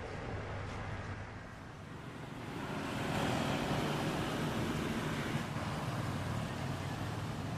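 Steady rumbling background noise with no clear single source, growing louder about three seconds in.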